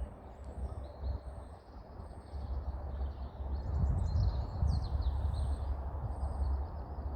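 Small birds chirping and singing, with short gliding notes, over a steady low rumble.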